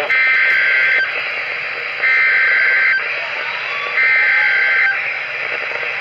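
NOAA Weather Radio SAME digital alert code played through a Reecom weather alert radio's speaker: three one-second bursts of two-tone data warble, about a second apart, over steady radio static.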